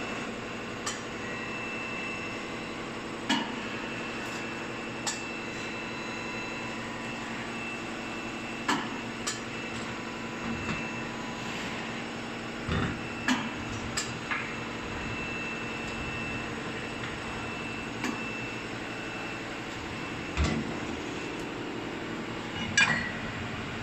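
CNC roll bending machine running with a steady hum and a faint high whine as its rollers feed an aluminium profile strip round into an oval. Sharp clicks and knocks come every second or few seconds throughout.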